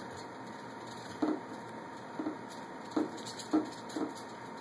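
Hobby RC servos of a small robotic arm buzzing in short bursts, five times in about three seconds, as the arm follows moves made in the computer.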